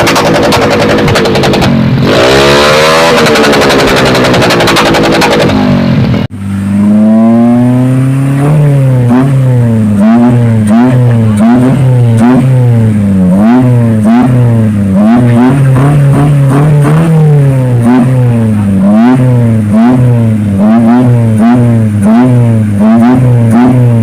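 A loud revving, engine-like sound. For the first six seconds or so it is harsh and noisy; it then cuts off abruptly and turns into a cleaner pitched drone that rises and falls over and over, about once or twice a second.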